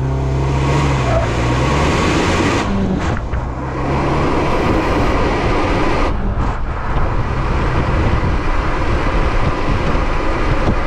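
2021 Ford Bronco's 2.3-litre EcoBoost turbo four-cylinder pulling under acceleration, its note rising over the first couple of seconds, then mostly covered by tyre and wind rush at speed.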